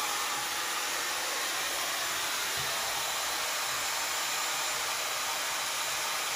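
Dyson Supersonic hair dryer running at a steady speed, blowing onto the hair: an even rush of air with a thin, high, steady whine above it.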